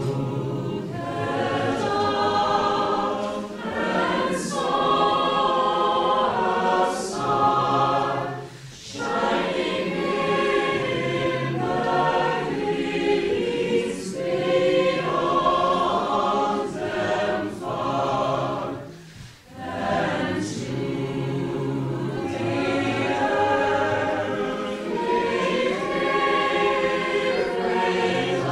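Mixed choir of men's and women's voices singing together, with brief breaks between phrases about eight seconds in and again near twenty seconds.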